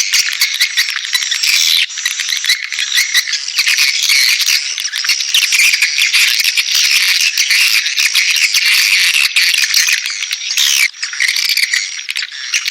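Swiftlet call recording: a dense, continuous, high-pitched chatter of many swiftlets twittering and chirping. It is the kind of calling sound played at swiftlet houses to lure the birds in to nest.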